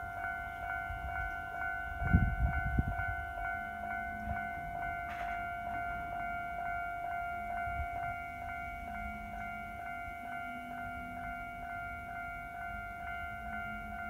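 Japanese railway level-crossing warning bell ringing steadily, its ringing electronic tone struck about two and a half times a second while the barriers are down. A brief low rumble about two seconds in.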